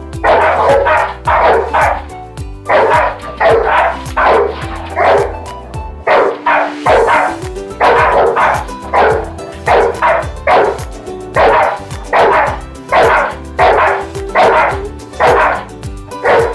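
Dachshund barking repeatedly in short, sharp barks, about two a second, with a brief pause partway through. Background music plays underneath.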